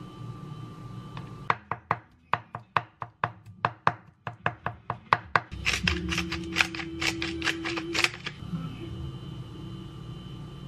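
Kitchen knife chopping raw shrimp into paste on a wooden cutting board, about four sharp strikes a second for some four seconds. A salt grinder is then twisted over a glass bowl, giving about two seconds of rapid crunching clicks.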